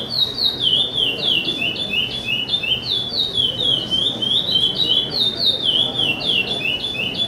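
Chopi blackbird (pássaro-preto) singing its 'charrua' song: a rapid, unbroken run of short whistled notes, each sliding down in pitch, about four to five a second, the phrase repeated over and over.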